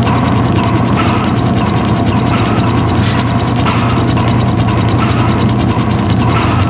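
Loud, fast, continuous mechanical clicking rattle, like a ratchet or gear mechanism, at an even level that cuts off abruptly at the end.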